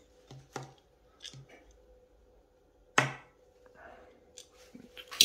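Handling sounds of a screwdriver and the hard plastic parts of a radio-controlled car chassis: a few light clicks early, then a sharper knock about three seconds in, followed by faint rattles.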